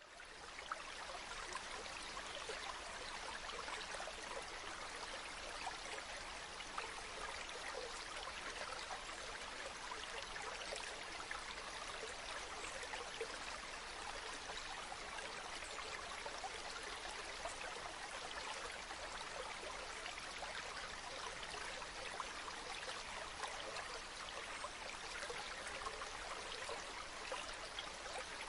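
Mountain river stream flowing over rocks: steady rushing and babbling water, fading in at the very start.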